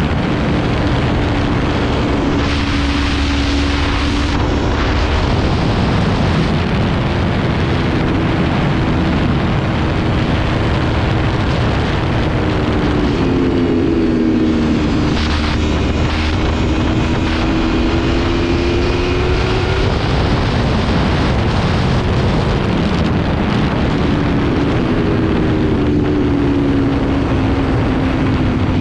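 Aprilia motorcycle riding at road speed: a steady rush of wind over the microphone with the engine note underneath, which holds steady, rises gently through the middle and drops away near the end as the throttle eases.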